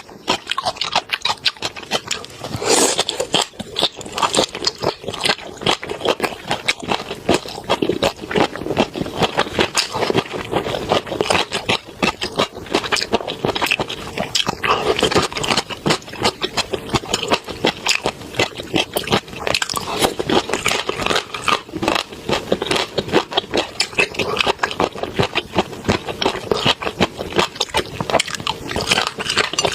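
Close-miked chewing and eating: a dense, uneven run of wet clicks and crackles from the mouth working on food.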